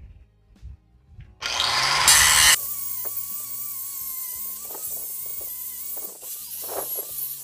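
Angle grinder switched on about one and a half seconds in, loudest as it starts, then running steadily with a wavering whine as its disc grinds rust off a steel plate.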